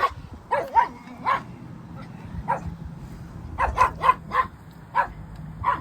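A dog barking: about a dozen short, sharp barks at irregular spacing, several coming in quick runs of two or three.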